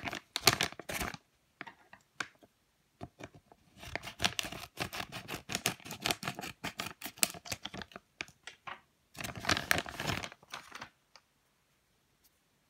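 Clear plastic packaging bag crinkling and rustling in three bouts as a foam squishy toy is worked out of it.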